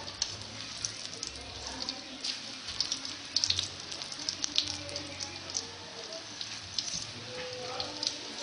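Banana halves frying in hot oil in a wok: steady sizzling dotted with many sharp, irregular crackles and pops, thickest around the middle.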